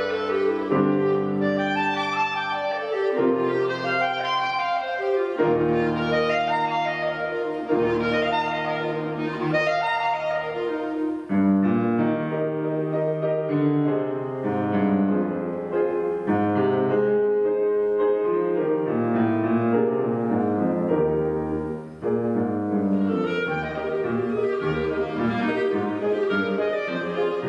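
Clarinet and grand piano playing a classical piece together. Partway through, the clarinet rests while the piano plays on alone.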